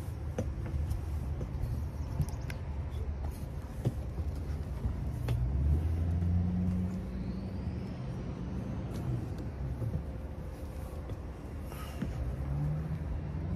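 A person climbing a truck camper's tubular rear ladder, with scattered light knocks and taps from the rungs, over a low rumble that swells around the middle.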